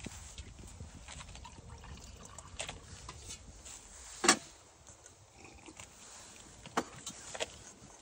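Small metal kettle being poured into a mug, a faint trickle of water. About four seconds in comes one sharp clink, the loudest sound, followed by a couple of lighter knocks near the end.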